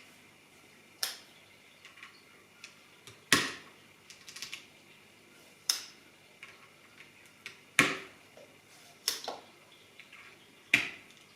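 PBT keycaps being pressed one at a time onto the Holy Panda switch stems of a mechanical keyboard, each giving a sharp plastic clack as the key bottoms out. There are six clacks spread a second or two apart, some with a few lighter ticks after them.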